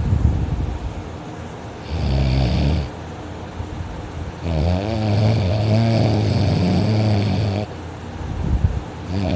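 A person snoring heavily in deep sleep while lying on her back: loud, rough snores come one after another, with one long, wavering snore of about three seconds in the middle.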